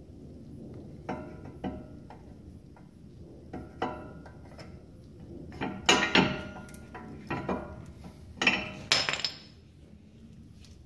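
New brake pads being slotted into a disc brake caliper bracket, their steel backing plates clicking and clinking against the bracket and its metal pad clips. A series of separate sharp clinks with a short metallic ring, loudest in two clusters in the middle and a couple of seconds later.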